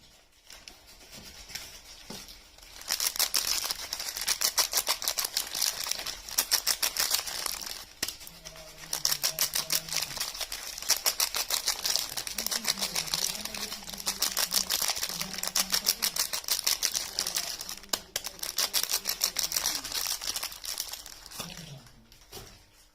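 Soap packaging crinkling and crackling as it is handled and unwrapped close to the microphone, in a dense rapid run of crackles. It starts about three seconds in, eases briefly near eight seconds and stops just before the end.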